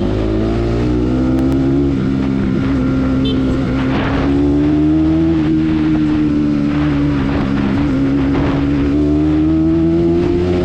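Bajaj Pulsar NS200's single-cylinder engine running at high revs while riding, its pitch climbing and dipping slightly and rising again near the end.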